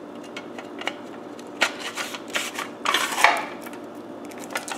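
Plastic cover of a Verbatim hard drive enclosure being handled, giving scattered clicks and rubbing, with a denser stretch of scraping and rustling about three seconds in.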